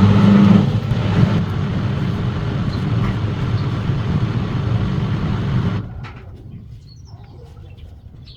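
Skyworth washing machine starting its cycle, its drum turning with a light spin to weigh the load: a steady motor hum with rustling that stops suddenly about six seconds in.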